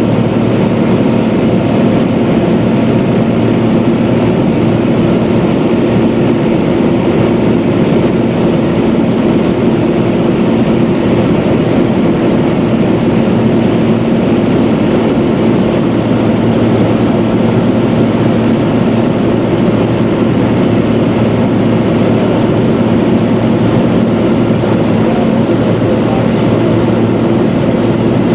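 Cessna 185's piston engine and propeller running steadily at constant power, heard from inside the cabin as a loud, even drone with no change in pitch.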